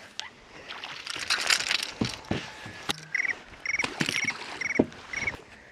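A hooked fish splashing at the surface as it is pulled aboard, then sharp knocks as it flops on the boat's deck. Five short trilled chirps repeat about every half second near the end.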